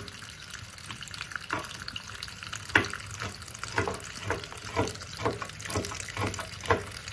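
Water running from a kitchen tap into a sink, with a run of light knocks and clatters about two a second from about three seconds in.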